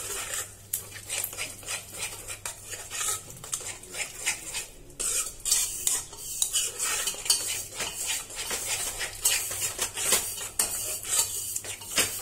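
Spatula stirring and scraping a thick curd-and-tomato gravy around a nonstick kadai in quick, irregular strokes, with a faint sizzle. The stirring is kept up nonstop so the curd does not split.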